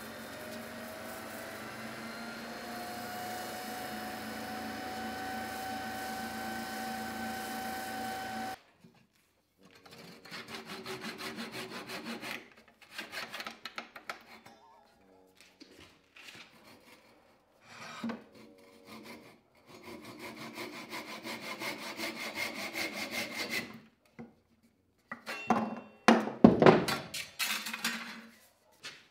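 Record Power wood lathe running with a steady motor whine that rises slightly in pitch while a hand rubs the spinning beech stem; it cuts off about 8 seconds in. Then a handsaw cuts through the beech in runs of back-and-forth strokes, and near the end a few loud knocks sound as the piece comes free.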